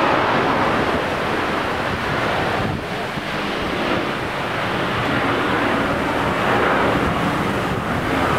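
ElDorado National EZ Rider II BRT series-hybrid (gasoline-electric) bus standing and running, giving a loud, steady rushing noise, with wind buffeting the microphone.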